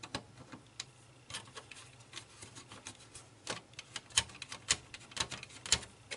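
Small screwdriver working the plastic tray and door mechanism of an opened CD-ROM drive, giving irregular sharp plastic clicks and ticks. The clicks are sparse at first, then come faster and louder from a little past halfway.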